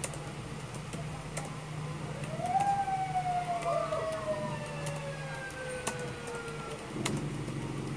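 Ambulance siren wailing once, rising in pitch about two and a half seconds in and then slowly falling away, over scattered clicks of a computer keyboard being typed on and a steady low hum.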